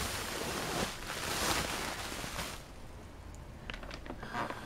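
Bubble wrap rustling and crinkling as it is pulled off a plastic window fan for about two and a half seconds. After that it goes quieter, with a few light clicks and taps from handling.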